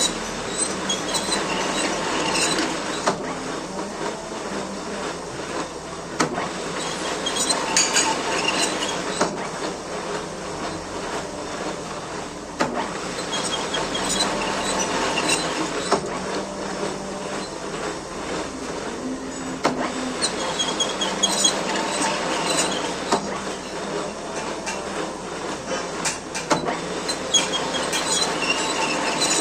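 Metal lathe running while cutting a thread on a bolt, a steady machine hum with metallic screeching from the cut that comes and goes about every six or seven seconds.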